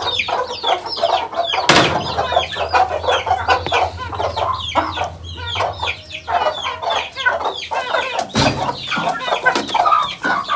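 A flock of young chickens clucking and chirping at feeding time, many short falling calls overlapping in quick succession.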